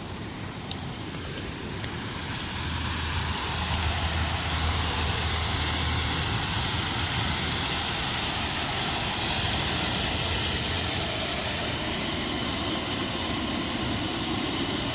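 Waterfall rushing as a steady, even roar of falling water, growing louder over the first few seconds and then holding steady.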